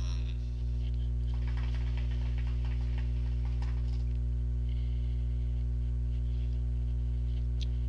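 Hookah water bubbling and gurgling in the base as smoke is drawn through the hose, a dense run of small irregular pops over about three seconds, then a softer breathy exhale. A steady low electrical hum lies underneath.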